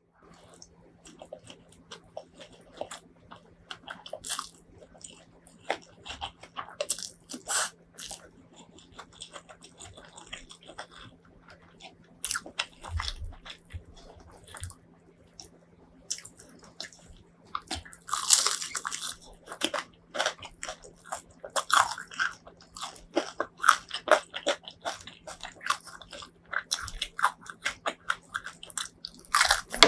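Close-miked eating: crunchy bites into fried chicken and chewing, with many sharp crackles that come thickest in the second half.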